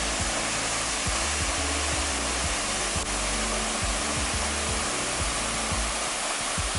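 Steady rushing of a waterfall and the rocky creek cascading below it.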